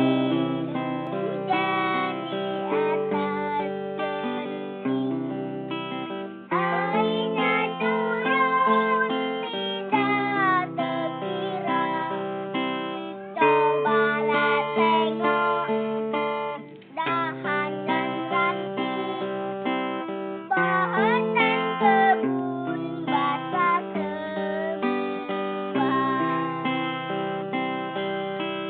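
A child singing a song to acoustic guitar. The guitar is strummed throughout, and the voice comes and goes in phrases.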